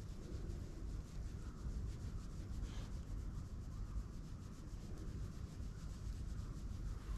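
A hand stroking a long-haired cat's thick fur close to the microphone: a steady rubbing rustle over a low rumble.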